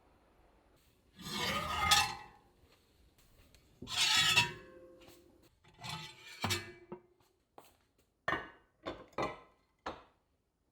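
Kitchen utensils at work: two longer scrapes against cookware, then a run of short clinks and knocks.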